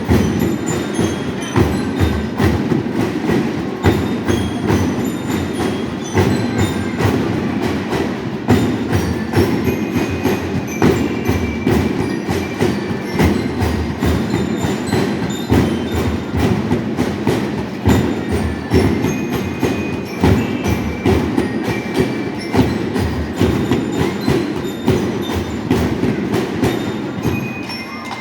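Marching band (banda músico-marcial) playing: fast, steady drumming with short, high bell-lyre notes ringing over it. The playing breaks off near the end.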